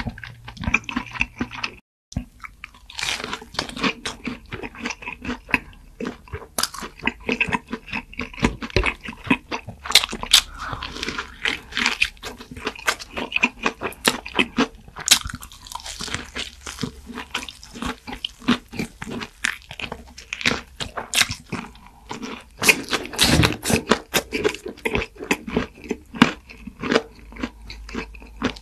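A person eating crunchy food close to the microphone: dense, irregular crunching and chewing, with a brief break about two seconds in.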